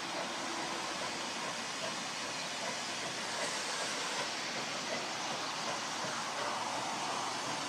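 A steam-hauled passenger train approaching at a distance, heard as a steady noise with no distinct exhaust beats, growing a little stronger near the end.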